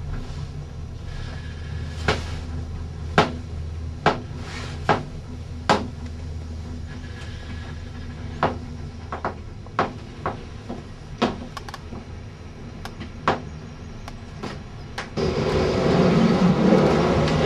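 Ride inside a vehicle: a steady low drone with irregular knocks and rattles. About fifteen seconds in it cuts to a louder mechanical din at a gondola lift station.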